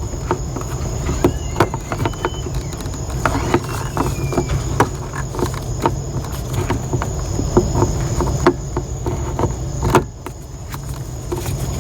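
Repeated light plastic clicks and scrapes as a brake light bulb socket is worked into a Toyota Camry's tail light housing, lined up with its slots and turned clockwise. There is a sharper click about ten seconds in.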